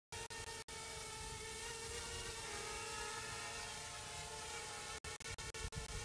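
Parrot Bebop 2 quadcopter hovering low, its propellers giving a steady buzzing whine of several pitches. The sound cuts out briefly several times near the end.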